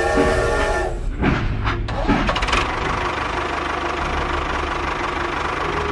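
A tractor engine starting up and then running steadily with a rhythmic knock, the engine sound of a miniature model tractor. A brief horn-like tone sounds at the very start.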